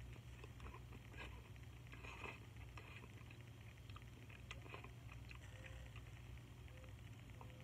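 Faint mouth sounds of eating instant noodles: a strand slurped in, then chewing, with small wet clicks.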